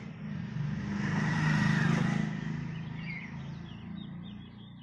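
A passing motor vehicle's engine, growing louder to a peak about a second and a half in, then fading away.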